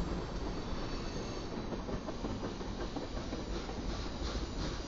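Freight train tank cars rolling past close by: a steady rumble of steel wheels on the rails, with some clacking of wheels over rail joints toward the end.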